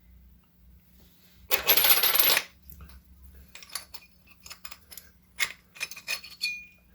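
Metal doorknob-lock parts clattering with a bright, coin-like jingle for about a second, a second and a half in, followed by a scatter of light clicks and taps as the lock is handled and its housing is taken off.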